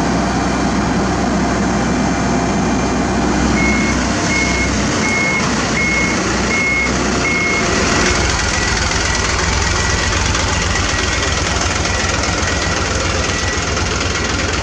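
Heavy road-construction machinery running steadily, with a reversing alarm beeping at a steady rate, about one beep every 0.7 seconds, from about four seconds in. From about eight seconds in a slightly lower-pitched beeping takes over.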